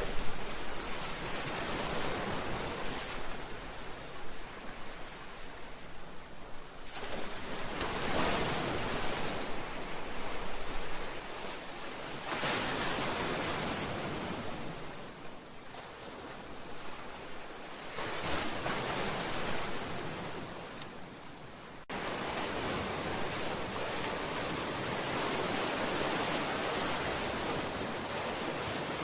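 Sea waves washing against a seawall and breakwater, each swell rising and falling over a few seconds. About two-thirds of the way through, the sound switches suddenly to a steady, even rush of water.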